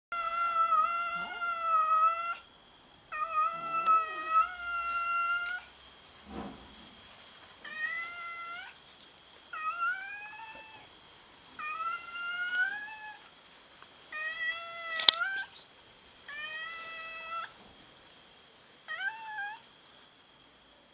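Two stray cats meowing in turn for food: about nine long, drawn-out meows, several rising at the end. One sharp click partway through.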